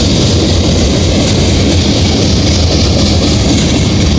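Loaded freight cars of a manifest train rolling past close by: a steady, loud noise of steel wheels on rail.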